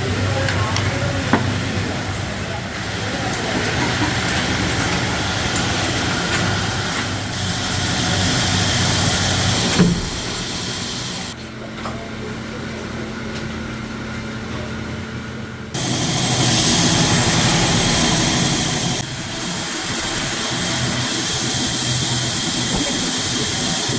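Factory machinery running with a steady hiss and whir, changing abruptly several times as one machine's sound gives way to another's. A sharp knock comes about ten seconds in, and a quieter stretch with a steady low hum follows.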